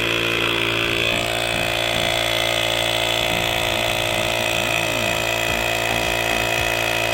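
Electric air compressor running steadily, pumping air into a scooter tyre.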